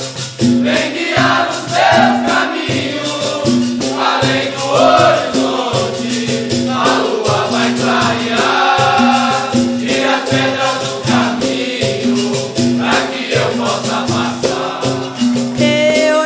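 Capoeira music: voices singing in chorus over berimbau and percussion, with a shaken rattle keeping a steady rhythm.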